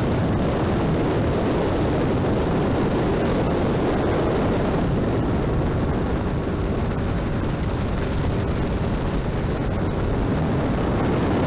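Motorboat under way at speed: a steady engine drone mixed with the rush of wind and water.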